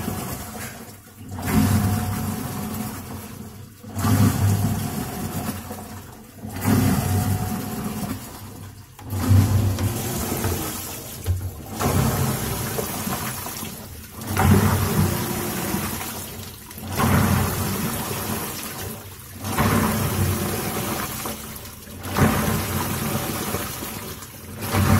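Midea top-load washing machine agitating a tub of water: the pulsator drive turns in strokes about every two and a half seconds, each starting with a surge of motor and gear noise and water swishing, then fading. The machine is being run to check a noise complaint that is put down to its gearbox.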